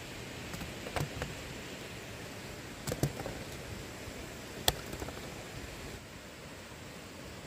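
Wild fruits dropping into a woven bamboo basket, landing as a few sharp knocks, the loudest about two-thirds of the way in, over a steady outdoor hiss.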